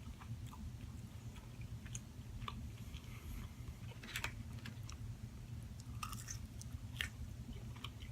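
Person chewing and biting food close to the microphone: scattered short mouth clicks over a steady low hum.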